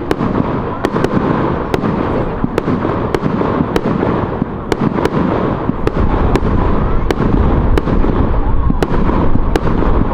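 Fireworks display: a dense, continuous barrage of bangs and crackling with frequent sharp cracks, the low booming getting heavier about six seconds in.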